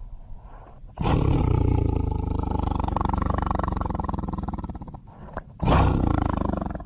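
Tiger roaring: a low rough growl at first, then a long roar of about four seconds starting a second in, and a second, shorter roar near the end.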